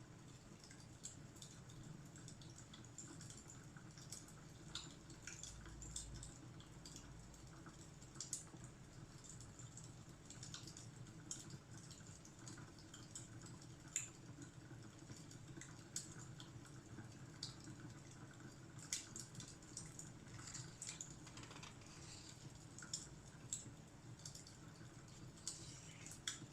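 Fireplace crackling quietly: irregular small pops and snaps over a faint low rumble.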